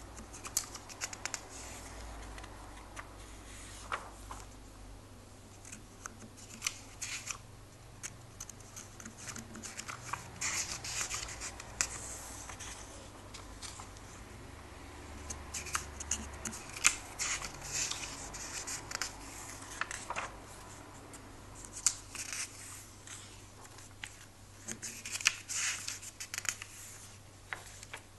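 Pages of a comic book being turned and smoothed flat by hand: bouts of crisp paper rustling and short flaps that come in clusters every few seconds.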